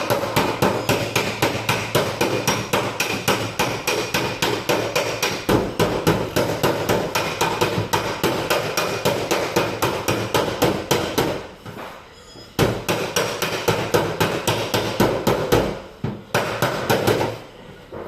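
Body hammer tapping rapidly on a car's sheet-metal panel, several quick strikes a second, to knock dents level before filler. The tapping pauses briefly twice, about two-thirds of the way in and again near the end.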